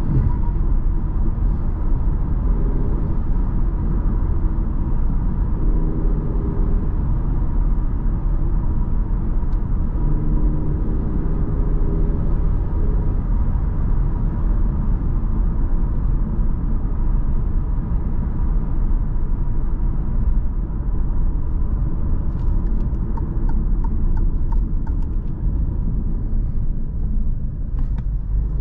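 Steady road and tyre rumble of a 2022 Alfa Romeo Giulia Veloce's 2.0 turbo four-cylinder at cruising speed, heard from inside the car, with the engine note coming up a few times in the first half. The sound eases slightly near the end as the car slows.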